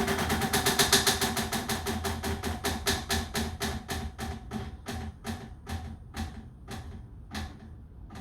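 Ceiling fan winding down: a clicking tick once per turn that slows from a rapid patter to about two ticks a second and grows fainter, over a fading motor hum as the fan coasts toward a stop.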